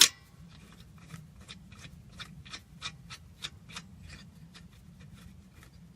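The bottom caliper bolt of a Subaru Crosstrek's rear brake being refitted: a sharp metal click at the start, then a run of light, evenly spaced metallic clicks, about three a second, as the bolt is run back in.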